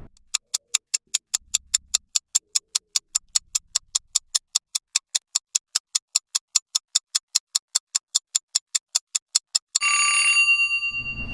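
Quiz countdown timer sound effect: steady, rapid ticking at about five ticks a second. Near the end it gives way to a ringing time's-up chime over a burst of noise.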